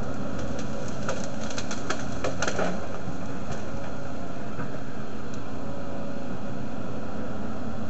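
Volvo tracked excavator's diesel engine running steadily while its bucket and thumb pull a tree down, with a cluster of snapping and cracking between about one and three seconds in.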